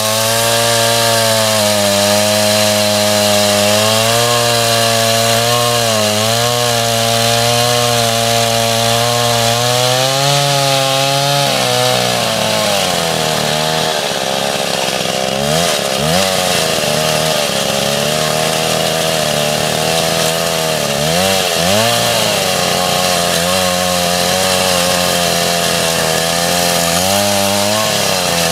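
Stihl MS 381 two-stroke chainsaw with a 36-inch welded bar ripping lengthwise along a log, its engine pitch wavering under load; the revs in the cut are too low, so the chain grabs a little. About twelve seconds in the saw comes out of the cut and runs at lower revs, is revved up sharply twice, and revs up again near the end as it goes back into the wood.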